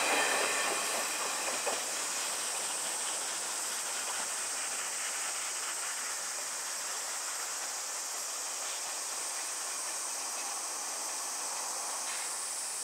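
A steam-hauled passenger train pulling away: its wheel clatter fades over the first couple of seconds, with a few faint clicks, and a steady high hiss is left.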